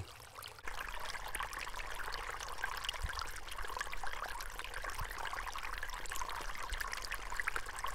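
Small stream trickling and pouring over rocks, its current running into and around a cloth bag of acorn flour wedged between the stones. A steady, even water sound.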